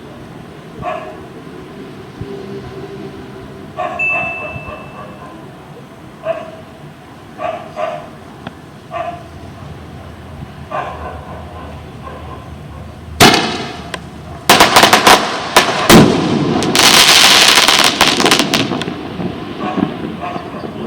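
Firework rocket of the 'chuva de luzes' (rain of lights) type going off: a single sharp bang about two-thirds of the way in, then a run of several loud bangs and a few seconds of dense crackling that fades near the end.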